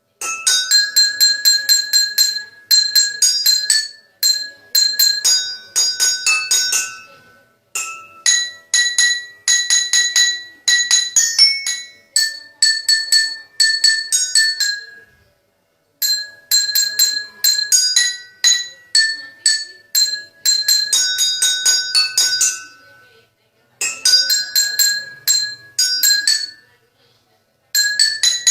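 A ringtone melody tapped out on bowls: quick ringing strikes, several a second, in repeated phrases with brief pauses between them.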